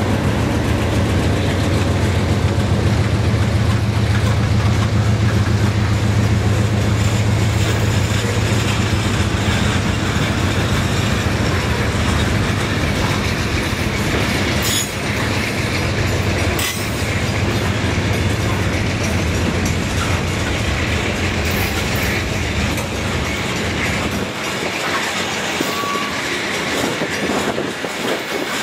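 Freight cars rolling past, steel wheels clacking over rail joints. A locomotive's deep diesel drone is strong at first and fades through the first half, and there are two sharp clanks midway.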